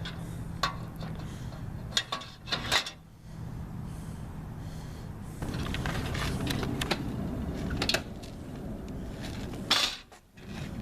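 Metal clanks and rattles from the steel motorcycle rack and ramp on a VW bus as a motorcycle is worked onto it, a handful of sharp knocks over a steady low rumble.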